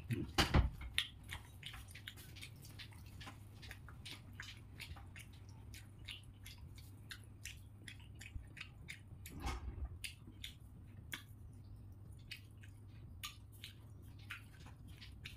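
Close-miked eating sounds: wet chewing and mouth clicks as a man eats pulao and rice dishes by hand, irregular throughout. Two dull thumps, about half a second in and again about nine and a half seconds in, over a steady low hum.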